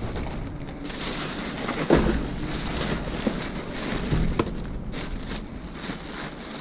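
Plastic bags rustling and crinkling as they are handled, with scattered crackles and a dull thump about two seconds in.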